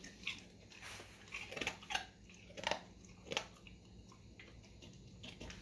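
A dog crunching and chewing a piece of crisp baked pork skin, with several sharp, irregular crunches in the first few seconds and fainter chewing after.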